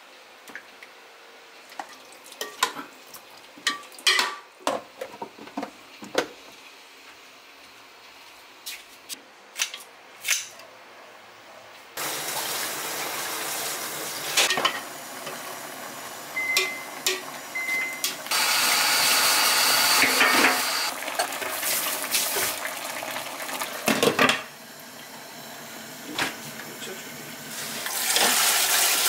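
Spoon and container knocking and clinking against a pot as red pepper paste is scooped in. About twelve seconds in, a steady hiss starts, from a gas burner on high flame. Later comes a louder rush of tap water as chili pepper leaves are washed in a colander.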